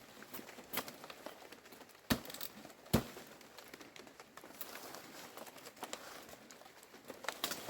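Objects being handled: scattered light clicks and rustling, with two sharper knocks about two and three seconds in.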